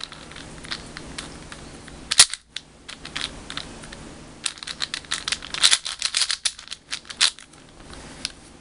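Plastic MoYu WeiSu 4x4 speedcube being turned by hand, its layers clicking and clacking as they turn and snap into line. There is a sharp click about two seconds in, then a quick run of clicks from about four and a half to seven seconds.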